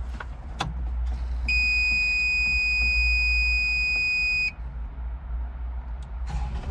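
A steady, high-pitched electronic buzzer sounds for about three seconds, starting about a second and a half in and cutting off suddenly, over the low rumble of the CAT 306 excavator's engine. The buzzer fits a machine's warning buzzer.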